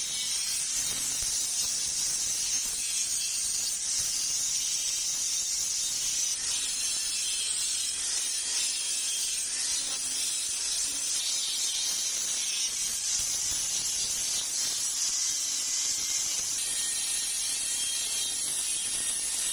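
Steady, even hiss of workshop machinery.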